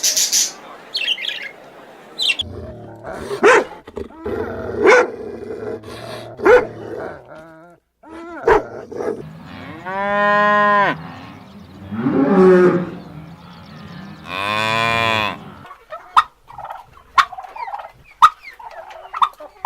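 Cattle mooing: two long, drawn-out moos about ten and fifteen seconds in, with a shorter low call between them and a series of short sharp calls earlier on.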